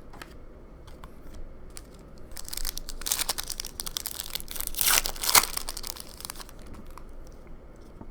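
A Panini Prizm basketball card pack wrapper being torn open and crinkled: a run of rustling that starts about two and a half seconds in and is loudest near the five-second mark.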